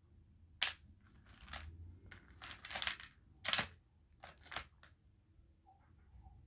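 Cooked crayfish shells cracking and crackling as they are pulled apart by hand: a string of sharp, short cracks, irregularly spaced, the loudest about three and a half seconds in.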